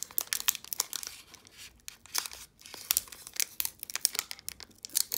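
Foil wrapper of a Pokémon Evolutions booster pack crinkling and tearing as it is pulled open by hand, a run of irregular sharp crackles.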